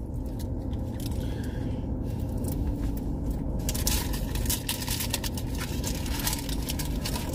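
Food packaging crinkling and rustling in runs of quick crackles, busiest from about halfway through, over the steady low hum of a car's engine idling.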